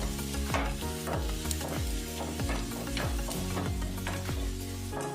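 Sliced onions sizzling as they fry in hot coconut oil in a pan and are stirred, cooking toward golden brown. Music with a steady beat plays underneath.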